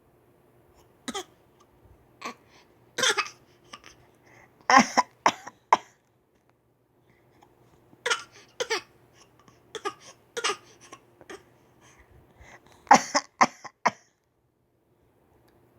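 A young child giving short, forced fake coughs, singly or in quick runs of two to four, with pauses of a second or more between runs.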